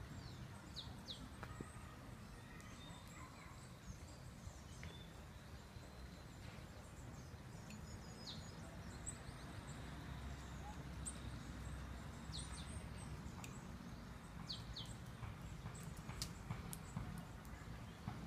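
Quiet outdoor ambience: a steady low rumble, with small birds giving short, high, downward-sliding chirps now and then, some in quick pairs. A few sharp clicks come near the end.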